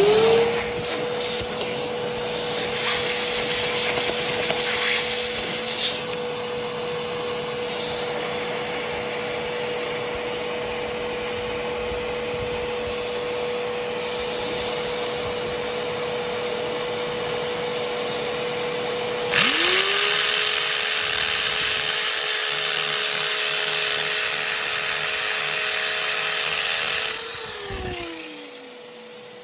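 A vacuum runs with a steady whine while a drill bores a hole into the concrete floor. About 19 s in a second motor starts with a louder rush, then winds down near the end while the vacuum keeps running.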